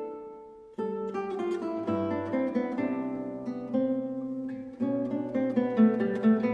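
Background music of plucked acoustic guitar. A held note dies away, then a new phrase begins just under a second in, and another starts near five seconds.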